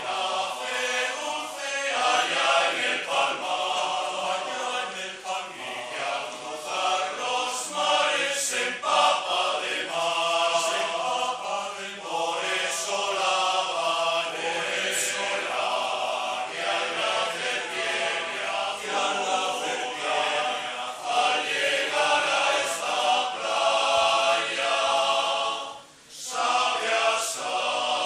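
Men's choir singing in harmony a cappella, with a brief break between phrases near the end.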